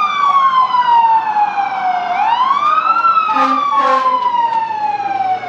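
Fire truck siren wailing in slow rise-and-fall cycles: the pitch falls for about two seconds, climbs quickly, then falls slowly again. Two short horn blasts sound over it about three and a half seconds in.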